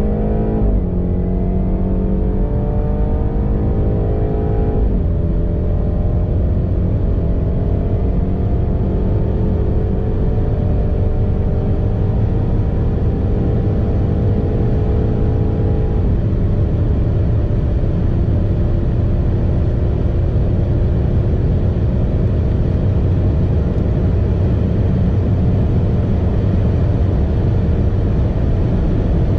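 BMW 330i's tuned 2.0-litre turbocharged four-cylinder, with its mid silencer removed, pulling at full throttle at high speed. The engine note climbs steadily in pitch and drops at three upshifts: about a second in, about five seconds in and about sixteen seconds in. In the last gear the pitch rises only slowly, over a heavy low rumble.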